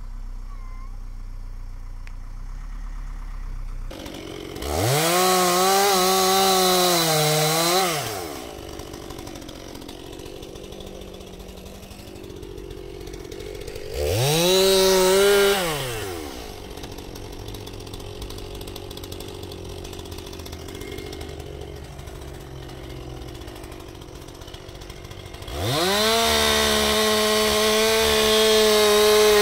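Chainsaw idling and revved up three times: held for a few seconds about 5 s in, briefly about 15 s in, then held at full throttle from about 26 s in.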